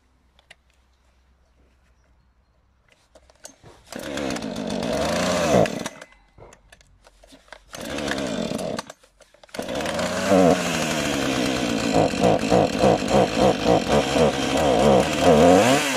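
Husqvarna 440 X-Torq two-stroke chainsaw being cold-started: after a few seconds of near quiet it fires and runs for about two seconds then stops, fires briefly again, and catches for good about nine seconds in. It keeps running, its note pulsing rapidly over the last few seconds.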